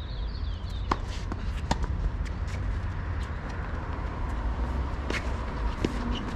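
Tennis ball being struck by rackets and bouncing on a hard court during a doubles rally: a series of sharp, separate pocks over a steady low rumble.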